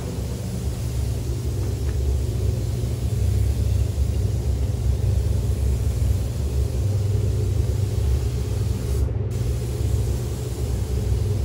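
Steady low rumble of air moving through a paint spray booth, with a faint hiss from an air spray gun applying coating.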